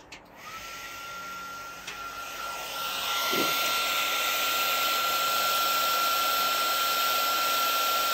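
Electric heat gun switched on: its fan motor spins up to a steady whine about half a second in, with a rush of air that grows louder about three seconds in and then holds steady.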